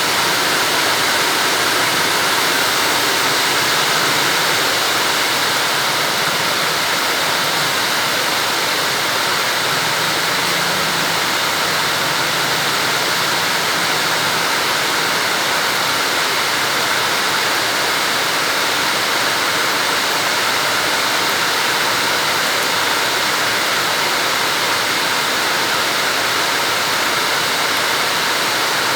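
Heavy rain pouring steadily, a dense unbroken hiss of water.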